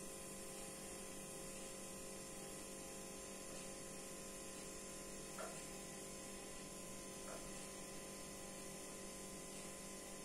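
Steady electrical hum with a faint hiss, the room tone of the recording, with two faint brief sounds about five and seven seconds in.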